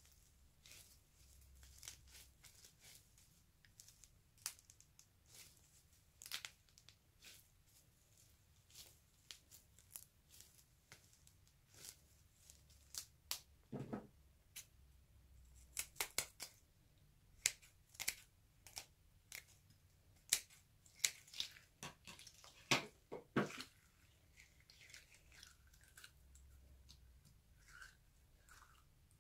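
Gel-filled mesh stress balls being squeezed and worked by hand, then cut open. They give many irregular short sticky clicks and crackles, thickest in the second half.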